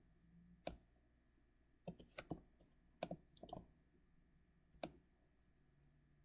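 Computer mouse clicking: about nine short, sharp clicks, some in quick pairs, scattered over near silence.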